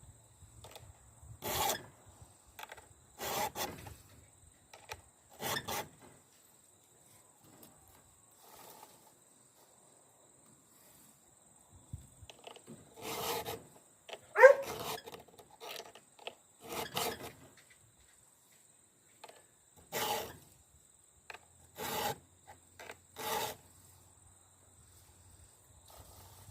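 Chainsaw file rasping across the cutter teeth of a 3/8-inch chain in single strokes, spaced a second or two apart, with a longer pause in the middle. About halfway through, one louder stroke gives a brief squeal.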